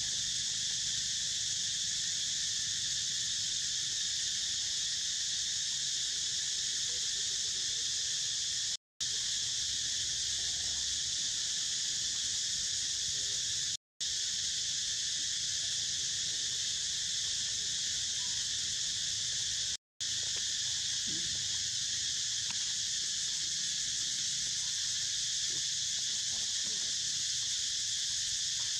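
Steady high-pitched insect chorus, an even drone that breaks off for a split second three times.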